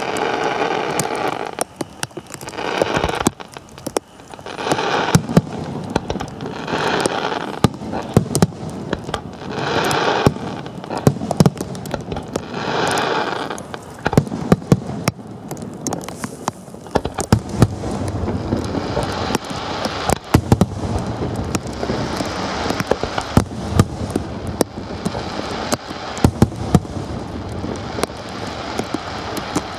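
Electrically fired firecrackers and fireworks going off in rapid crackling strings with many sharp bangs. In the first half they come in bursts about every two seconds; from about halfway they merge into a denser, steadier crackle.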